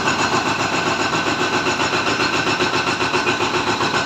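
An engine running steadily, with a regular throb of about four pulses a second.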